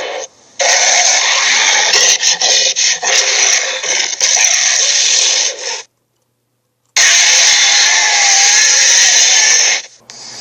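Home-made sound effect: loud, harsh rasping noise in two long stretches, cut off suddenly by about a second of dead silence in the middle.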